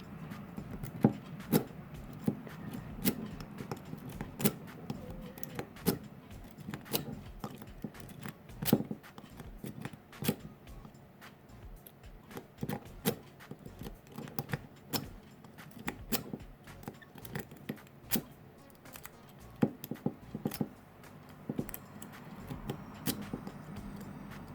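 Worm rake being rocked and scraped across the pins inside a Eurospec pin-tumbler padlock under a tension wrench, giving irregular sharp metallic clicks, about one or two a second, over a faint low hum. The raking does not open the lock.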